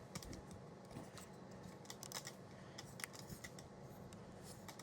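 Microwave oven running with a low steady hum, with irregular sharp clicks and crackles throughout.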